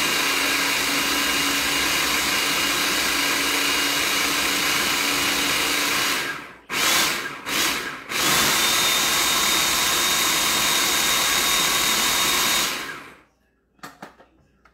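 Countertop food processor running, blending a cauliflower and pumpkin purée. It runs steadily for about six seconds, gives two short pulses, then runs again for about five seconds before winding down. A couple of faint clicks follow near the end.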